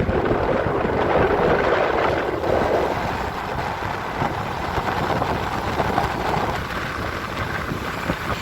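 Wind rushing over the microphone of a moving motorcycle, with engine and road noise underneath, a little stronger for the first three seconds or so.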